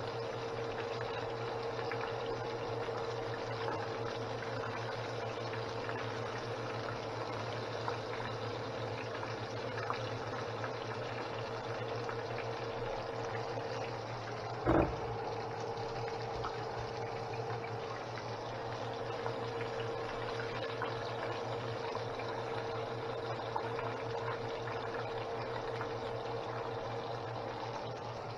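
Floured chicken pieces deep-frying in hot oil in a stainless steel pan, a steady sizzling and bubbling, with a steady hum underneath. About halfway through, the metal tongs give a single sharp clack as a piece is lifted out.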